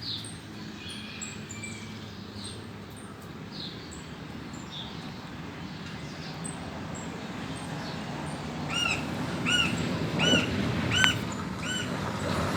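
Woodpecker calling: after some faint high chirps, a run of five short, arched calls about two-thirds of a second apart in the second half, with a single sharp tap among them. A low traffic rumble runs underneath and grows louder.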